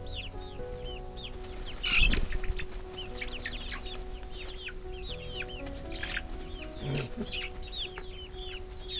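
Young chickens peeping over and over in short, high, falling chirps. A brief loud scuffle comes close by about two seconds in.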